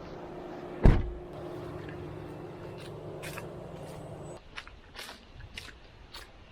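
Truck engine idling steadily, with one loud thump about a second in; the engine sound stops a little past four seconds in, leaving scattered sharp clicks.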